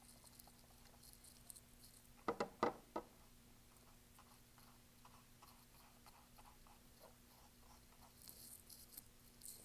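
Dry fan brush scrubbing acrylic paint onto canvas: faint, quick scratchy bristle strokes, with three brief louder sounds about two and a half seconds in.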